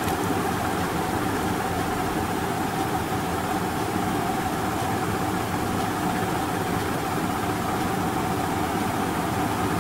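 Steady background hum and hiss with a constant mid-pitched tone, unchanging throughout, from a running machine such as a room fan or cooling unit.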